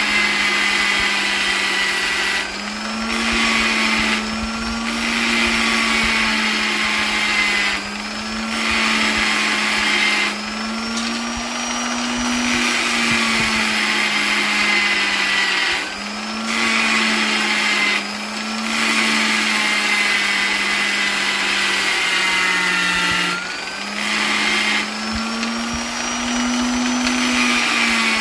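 Electric polisher's motor running continuously with a steady hum and a higher whine. Its speed wavers slightly, and the hiss briefly drops away several times before coming back.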